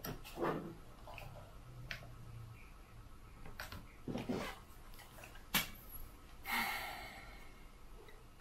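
Handling noises of a toy drone and its plastic remote being moved on a table: a few separate knocks and a sharp click about five and a half seconds in, then a short rustle.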